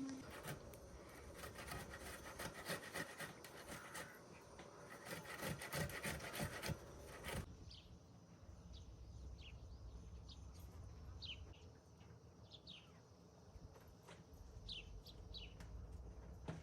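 A rough rubbing or scraping sound, full of small clicks, that stops abruptly about seven seconds in. It is followed by quiet outdoor ambience with scattered short, high, falling chirps.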